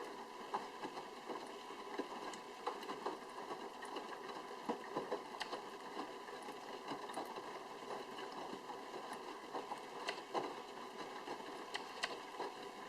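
Sharp drum washing machine in its wash cycle: the drum turns with wet laundry tumbling and sloshing inside, with irregular sharp clicks and knocks over a steady faint hum.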